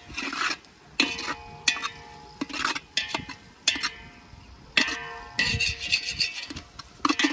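A metal spatula stirring and scraping masala in a metal cooking pan, knocking against the pan at irregular intervals, with the pan ringing briefly after each knock.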